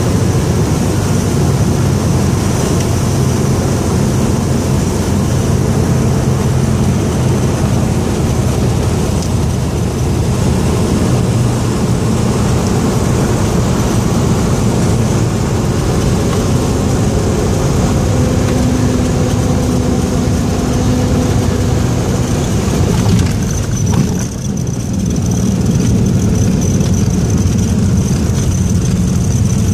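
Cessna Turbo 210's turbocharged six-cylinder engine and propeller droning steadily, heard from inside the cabin, with a brief jolt and dip in the sound about three-quarters of the way through.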